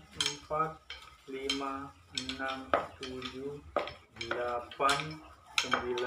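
Metal tubes rubbing and scraping against each other and the post as they are handled, giving a run of short squeaks and scrapes with clinks, about one or two a second.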